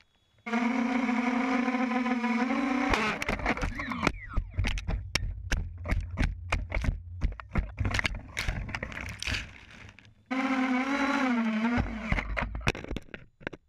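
QAV250 racing quadcopter's motors and propellers whining at a steady pitch that rises briefly before cutting off, then a long run of sharp knocks and clatter, then the whine again, dipping in pitch before it gives way to more knocks.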